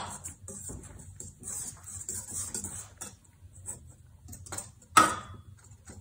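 Wire whisk stirring dry flour, salt and yeast in a stainless steel mixing bowl: quick, irregular scratchy strokes with the wires ticking against the metal, and one louder knock about five seconds in.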